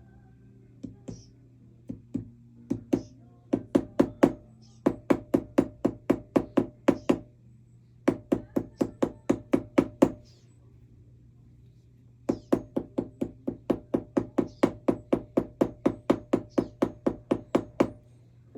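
Metal ring being tapped into shape on a steel ring mandrel with a mallet: runs of quick, even taps, about five a second, each with a short metallic ring, broken by brief pauses.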